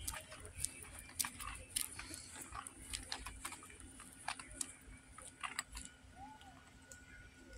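Footsteps of someone walking on pavement, a gritty step about every half second, stopping about five and a half seconds in. A faint steady high tone carries on after the steps stop.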